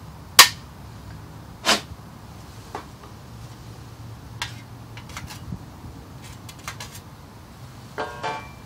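Two mallet blows knocking a stainless steel guard onto a boat's skeg, about a second and a half apart, the first the loudest, followed by a few lighter knocks and clicks. Near the end comes a brief metallic clatter that rings.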